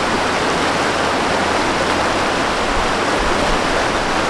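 Mountain stream rushing over rocks in whitewater rapids, a loud, steady hiss of water.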